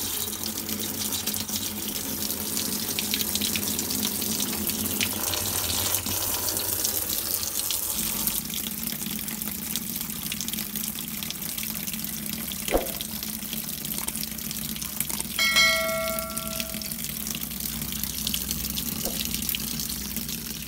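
Water from a Samsung top-load washing machine's water inlet valve pouring through the dispenser into the stainless drum, the flow heavier after the first few seconds: the repaired valve is opening and filling the tub. Midway through, a short electronic tone sounds for a second or so.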